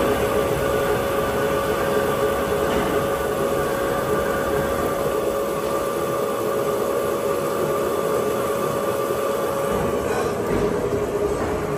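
Colchester Tornado 80 slant-bed CNC lathe cutting a spinning metal bar under coolant spray: a steady machining noise with a constant whine at a few fixed pitches.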